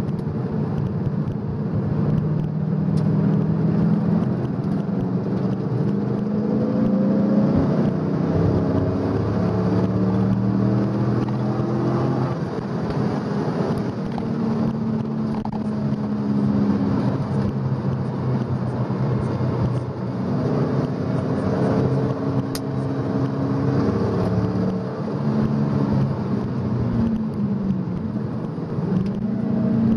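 Fourth-generation Chevrolet Camaro Z28's 5.7-litre V8 heard from inside the cabin at track pace, its note repeatedly rising as it accelerates through the gears and dropping back as it lifts off and shifts.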